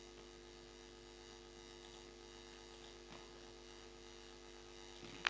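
Faint steady electrical hum, with a single sharp click near the end.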